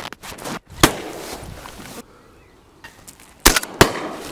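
Shotgun shots fired at geese: one report about a second in, then two more in quick succession near the end.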